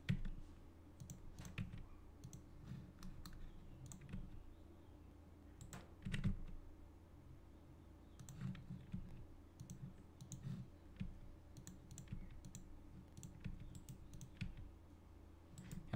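Faint, irregular clicks of a computer keyboard and mouse as shortcut keys are pressed and mesh elements are selected, over a steady low hum.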